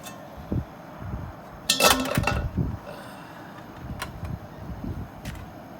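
Handling noise: low bumps and knocks, with a short, loud metallic clatter about two seconds in and a couple of sharp clicks later on.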